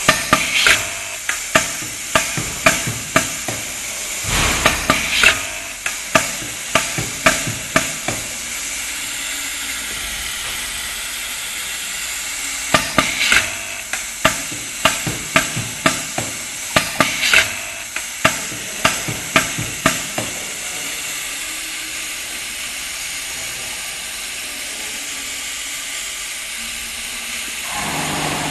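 Sticker labeling machine running: sharp clicks a little under two a second over a steady hiss, in two runs with a pause of a few seconds between them. Near the end a lower steady hum comes in.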